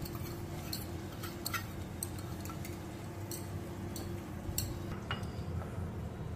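Scattered light clinks and taps of steel kitchen utensils as a steel bowl is tipped and scraped out into a steel cooking pot, over a steady low hum that stops about five seconds in.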